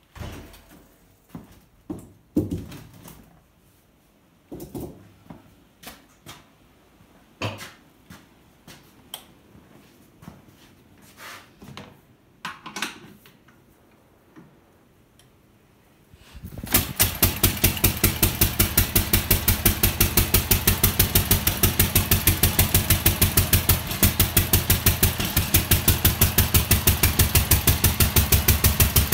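Restored 1905 Orient Buckboard single-cylinder, air-cooled engine. Scattered clicks and knocks come first; about halfway through, the engine starts and runs with a steady, rapid, even firing beat.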